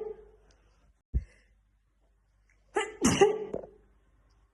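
A woman sneezing in a fit. The end of one sneeze fades at the start, a short low thump comes about a second in, and a loud high-pitched ah-choo comes about three seconds in.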